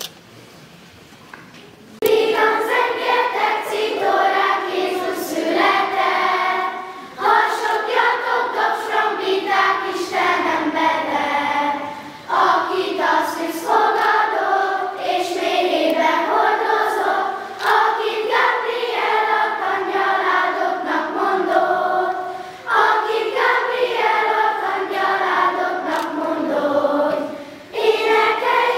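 Children's choir singing. It comes in about two seconds in and goes on in phrases with short breaks between them.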